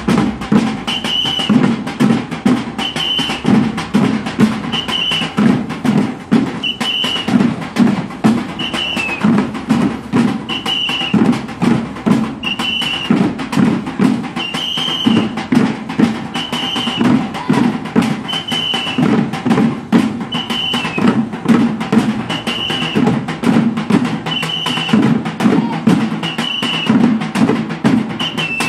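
A children's bucket-drum band beating plastic buckets as drums in a steady, dense rhythm, with a short high whistle blast about once a second over the beat.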